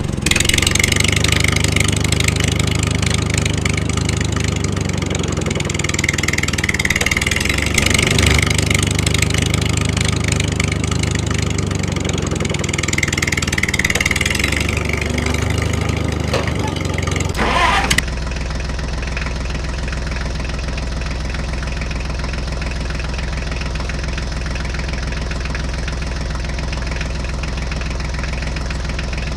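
Tractor engine running and revving up and down a few times. A little past halfway it changes abruptly to a steady, even run.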